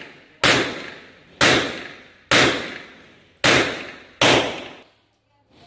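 Five pistol shots from a Rock Island Armory Tac Ultra FS HC, roughly one a second, each a sharp crack followed by a short decaying echo.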